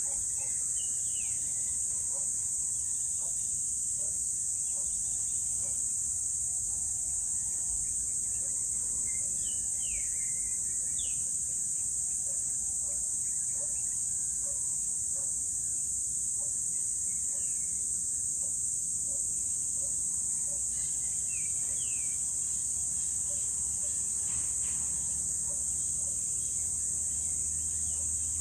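Steady, high-pitched chorus of insects, with scattered short bird chirps over it. A low hum comes in near the end.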